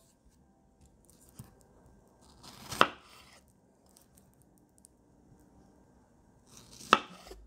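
Chef's knife slicing through strawberries and striking a wooden cutting board: two cuts about four seconds apart, each a short slicing sound that ends in a sharp knock.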